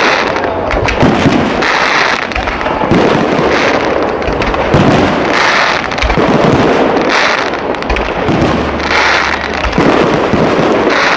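Fireworks display going off without pause: shells bursting one over another, with rounds of crackling every couple of seconds.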